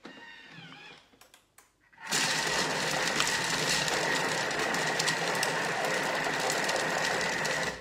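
Thermomix food processor running at speed 5, its blades chopping raw broccoli, red pepper and apple: a loud steady high whine over a dense clatter, starting about two seconds in and stopping abruptly near the end.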